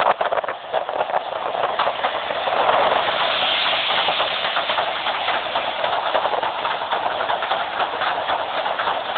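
Wind and rain: a steady rushing hiss flecked with many small ticks, swelling somewhat about three seconds in.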